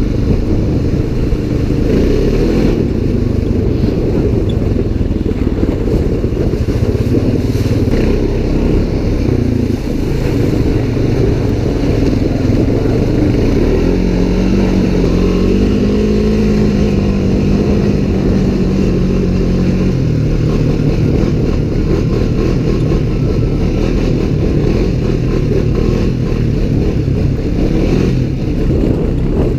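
Off-road utility vehicle engine running steadily under way, with its pitch rising for a few seconds about halfway through as it speeds up.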